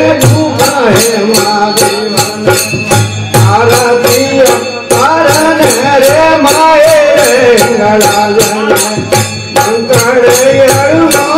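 Rajasthani devotional bhajan: a man sings a wavering, ornamented melody over the drone of a tandura. Small hand cymbals click a steady beat at about two to three strokes a second.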